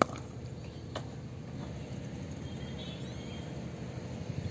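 Low, steady rumble of wind on the microphone on an open cricket ground, with one sharp knock at the start and a fainter one about a second later.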